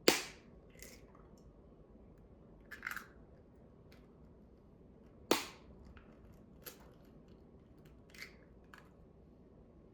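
Two eggs cracked sharply on a bowl, one at the very start and one about five seconds later, with a few lighter clicks and taps of shell in between.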